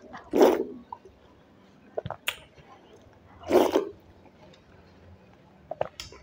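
Close-up eating sounds of yogurt-soaked dahi bhalla eaten by hand: two loud wet slurps about three seconds apart, with small lip smacks and squelches between.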